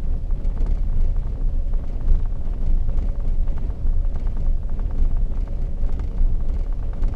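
1974 Valiant's engine idling steadily as it warms up after a cold start, with the idle settled down but running rough, heard from inside the cabin. Rain ticks on the car throughout.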